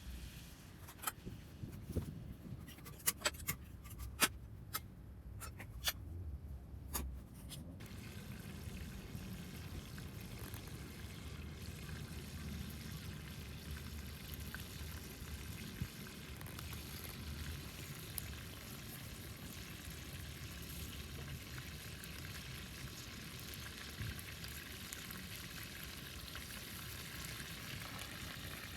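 Sharp clicks and pops through the first several seconds, then a steady sizzle of food frying in a pan over a wood fire.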